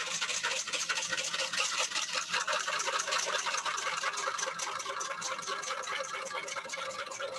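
Wire whisk beating rapidly against a bowl in quick, even strokes, several a second. It is whisking a mustard vinaigrette while oil is poured in slowly to emulsify it.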